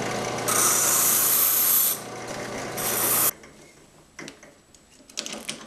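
Drill press motor running with a small abrasive stone in its chuck, and the end of a steel music-wire rod held against the stone being ground round, in two bursts of hiss about half a second in and near three seconds. The motor hum cuts off a little past three seconds, followed by a few light clicks of handling.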